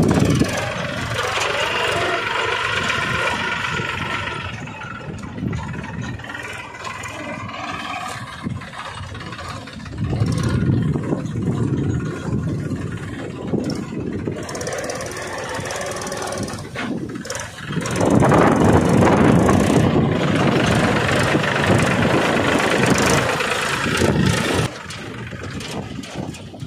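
A homemade mini tractor's engine running unevenly. It gets louder about ten seconds in, louder again about eighteen seconds in, and drops back near the end.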